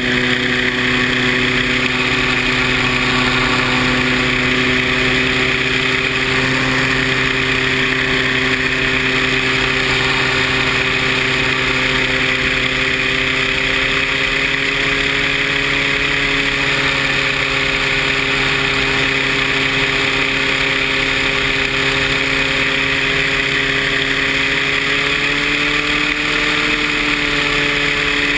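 Paramotor engine and propeller running steadily under power, with a small rise in pitch near the end.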